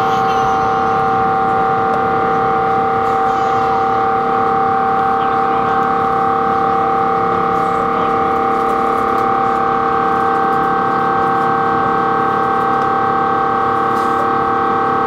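Airbus A350's Rolls-Royce Trent XWB turbofan engine at climb thrust just after takeoff, heard inside the cabin: a steady drone with several held tones over a rushing hiss.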